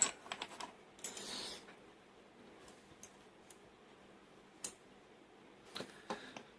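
Scattered small metallic clicks and taps from a euro profile lock cylinder being taken apart with a plug follower. There is a quick cluster of clicks in the first second, then single ticks every second or so.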